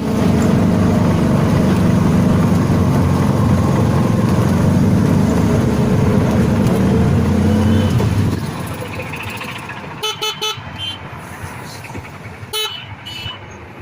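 Loud, steady engine and road noise of a moving vehicle, which drops away after about eight seconds. A quick cluster of short horn toots follows about ten seconds in, and another comes near the end.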